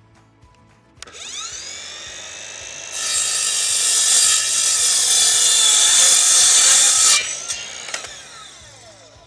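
Ryobi miter saw's motor spins up with a rising whine about a second in and runs free for about two seconds, then the blade crosscuts a 2x4 board for about four seconds, much louder. After the cut the motor is released and winds down with a falling whine near the end.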